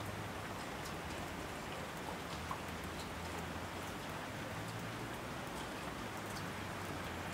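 Steady rain falling: a dense, even patter with scattered single drops standing out.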